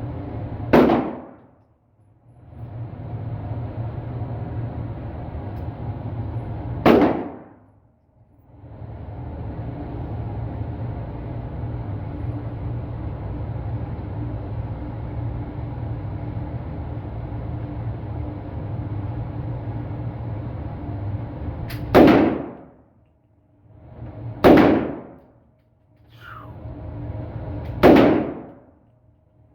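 Five gunshots from a .300 Blackout rifle, fired one at a time. The first two come about six seconds apart, and the last three come a few seconds apart near the end. Each sharp report is followed by a brief hush, over a steady background noise.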